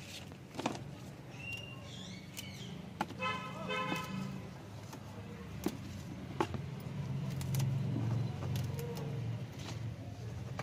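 Low rumble of road traffic, with a vehicle horn sounding briefly about three seconds in and a few scattered sharp clicks.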